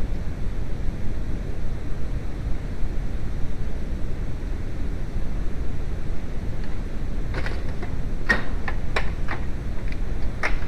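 A steady low rumble, with a few sharp clicks and clinks near the end, like tools or metal parts being handled.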